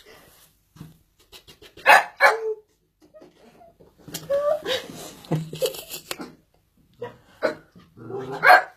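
Shetland sheepdog barking in short sharp barks: two close together about two seconds in, a run of barks in the middle, and a few more near the end.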